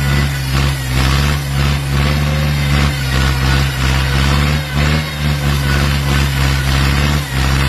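Car engine driving a homemade circular saw for cutting wood, running steadily with a buzzing hum whose loudness dips briefly every half second to a second.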